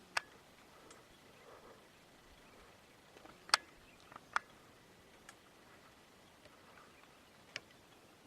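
Quiet background with a handful of isolated sharp clicks, the loudest about three and a half seconds in.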